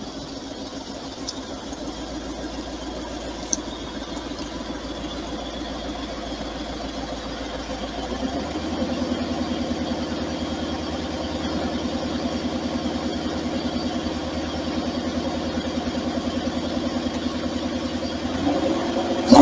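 1990 Corvette C4's L98 5.7-litre V8 running as the car pulls up. It gets louder about eight seconds in as the car comes close, then idles steadily, heard through a doorbell camera's microphone.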